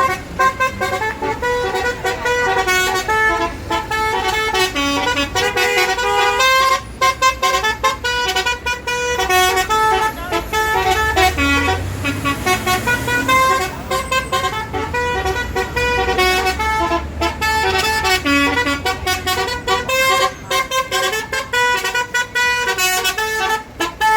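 Basuri-type 'telolet' multi-tone bus horn playing a fast tune of short notes, one after another almost without a break. A bus engine's low running sounds underneath, stronger around the middle.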